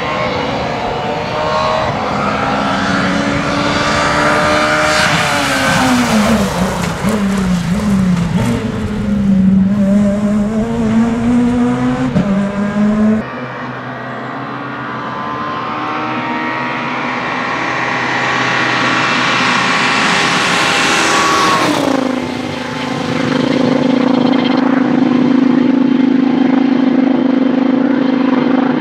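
Peugeot 207 S2000 rally car's two-litre four-cylinder engine at racing revs, its pitch climbing and falling through gear changes as it drives past. After a sudden cut about halfway through, the car approaches again with revs rising, then drops sharply, and a steady drone holds near the end.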